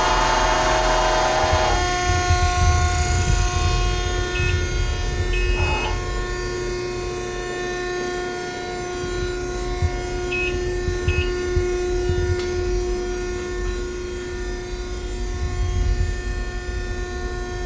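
Wysong hydraulic press brake's hydraulic pump and motor running with a steady hum, under a low rumble, with a louder whirring stretch in the first couple of seconds. A few short high beeps come in pairs around the middle.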